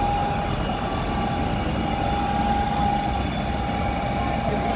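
Fire engine running steadily with its pump feeding the charged hoses: a low rumble with a constant high whine over it.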